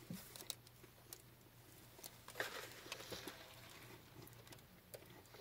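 Near silence, with faint scattered clicks and soft mouth sounds as soda is sipped through a straw from a plastic cup.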